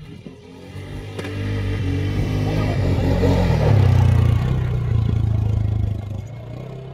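A motor vehicle's engine running close by, its low hum growing louder to a peak about four seconds in, then dying down.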